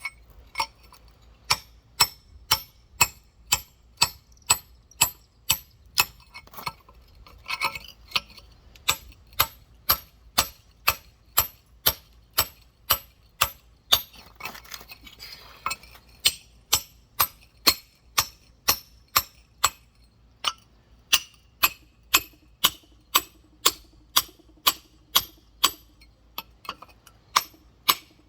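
Rock hammer tapping steadily around a giant geode, a sharp clinking strike about twice a second with a couple of brief breaks, scoring the stone all the way round so that it will split into two halves.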